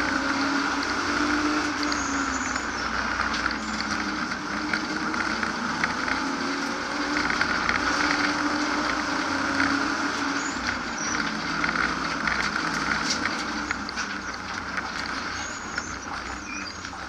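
BMW E36 328i's 2.8-litre straight-six engine heard from inside the stripped race cabin, running hard under load with its pitch rising and falling as the car is driven through the course. Dense road and wind noise and scattered short clicks and rattles run alongside it, and it eases off a little near the end.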